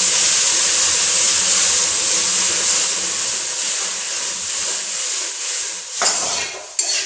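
Water being poured into a hot kadhai of roasted semolina, hissing and sizzling into steam as it hits, the first stage of turning the roast into sooji halwa. The hiss eases off from about four seconds in, and two sharp knocks come near the end.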